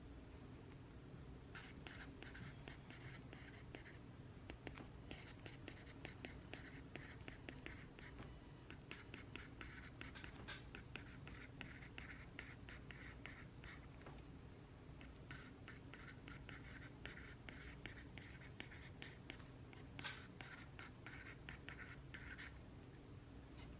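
Pen writing on paper: faint bursts of quick scratching strokes, each lasting a few seconds with short pauses between, over a low steady room hum.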